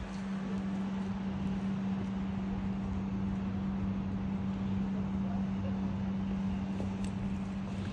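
A steady low hum holding one pitch, over the even background noise of a city street.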